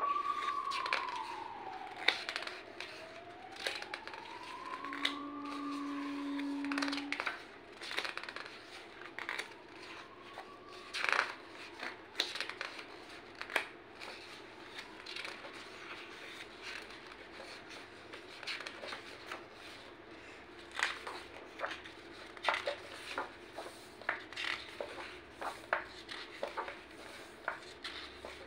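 Pages of a large hardcover picture book being turned by hand, a run of paper rustles, flaps and light slaps as each sheet is lifted, swung over and pressed flat. During the first ten seconds or so a faint tone also slides slowly up and down in pitch.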